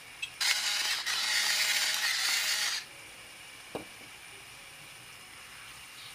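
Salt grinder grinding salt in two runs over about two seconds, a brief break between them, followed a second later by a single short knock.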